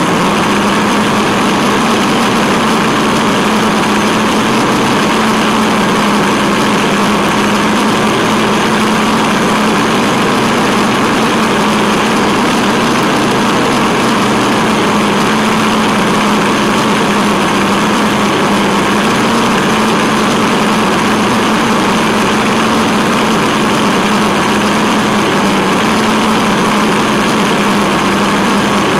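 The Tamiya Wild Willy 2 RC truck's electric motor and gearbox run at an even pace, heard close from on board as a constant hum over a steady noisy whir.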